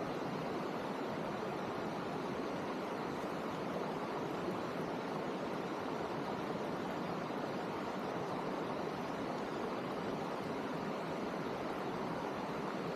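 Steady, even rushing water noise, a hiss with no separate drops, splashes or knocks.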